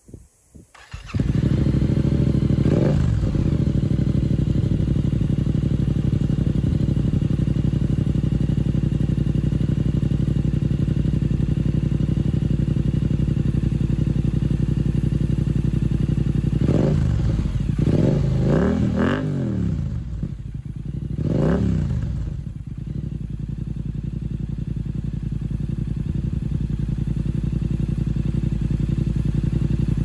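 Yamaha R7's 689 cc parallel-twin engine, breathing through an aftermarket carbon slip-on exhaust, starts about a second in and settles into a steady idle. About two-thirds of the way through, four or five quick throttle blips rev it up and drop it back. It then returns to idle.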